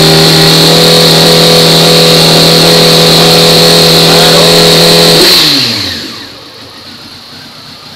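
Honda CBR600 F4i inline-four engine with an aftermarket Micron exhaust, held steady at raised revs of about 7,000 rpm, then throttle released about five seconds in: the revs fall quickly and it settles back to a much quieter idle.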